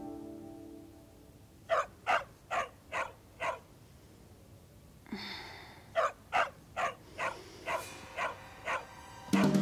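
A dog barking in two runs of short, quick barks, about two or three a second, with a pause of a couple of seconds between the runs.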